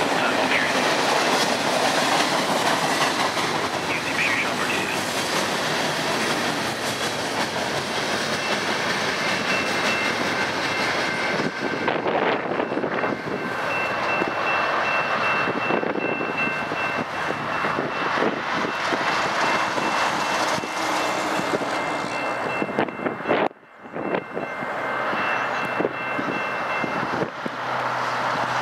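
Freight train cars rolling past on jointed rail, steady clickety-clack of the wheels, with a thin high steady tone running through the middle stretch.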